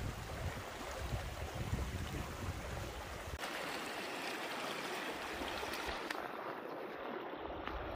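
Steady rushing of a mountain stream. About three and a half seconds in, the low rumble drops away and the hiss turns brighter.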